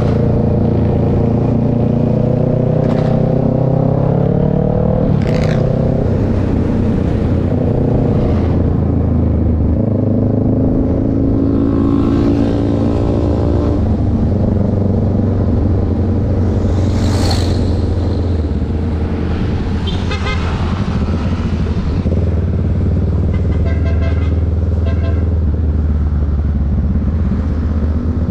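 Motorcycle engine running on the road, its pitch rising several times as it accelerates through the gears, over a steady low rumble and road noise. A few short beeping tones sound in the second half.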